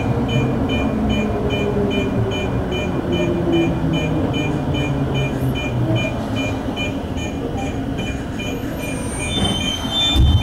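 Tokyo Metro 05 series subway train heard from inside the car as it brakes into a station: a steady rumble of the wheels on the rails, with the traction motors' whine falling steadily in pitch as it slows. A faint high tick repeats about twice a second throughout.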